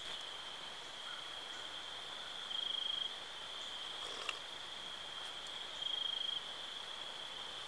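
Insects trilling in one steady, high, unbroken chirr, swelling louder twice in short pulsing stretches.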